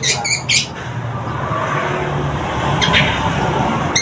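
Young long-tailed shrike (cendet) that has only just begun to sing: a quick run of short, sharp, high notes in the first second, then one brief note near three seconds. A rushing background noise, like passing traffic, swells through the middle, and the shrike's notes start again at the very end.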